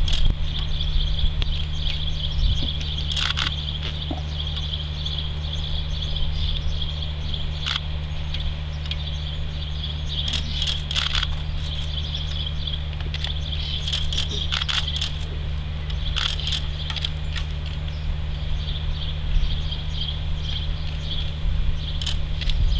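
Outdoor ambience: a steady high-pitched chirring with scattered short chirps or clicks, over a low steady hum.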